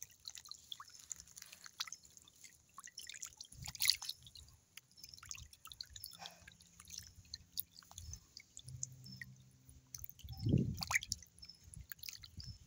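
Many small splashes, drips and smacks from a shoal of lambaris, small tetra fish, wriggling and snapping at biscuit crumbs in very shallow water at the bank, with a few louder splashes.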